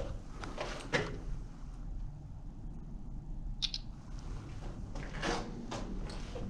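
Footsteps scuffing along the floor of an underground air raid shelter: a couple of steps about a second in and a few more near the end, with one short high click midway, over a low steady rumble.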